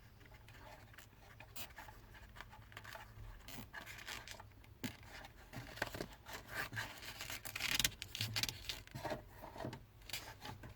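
Hands working cables along a car's floor under lifted carpet: irregular rustles, scrapes and small plastic clicks, getting louder and busier in the second half.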